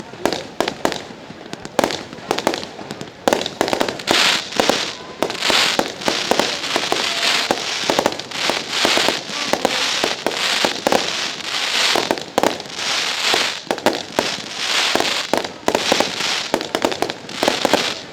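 Fireworks going off in a rapid, continuous barrage of sharp bangs, with crackling and hiss between them.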